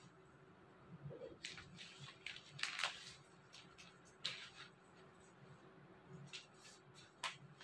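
Faint rustling and soft brushing of cloth being handled and shifted, in a few short scattered swishes with light taps.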